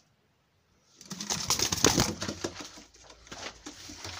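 Domestic pigeons stirring in the loft: a burst of rustling, scuffling noise starts about a second in and then dies down.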